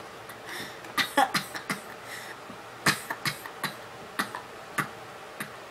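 A person's short, sharp coughs and throat clicks, about a dozen scattered irregularly, a mock choking fit.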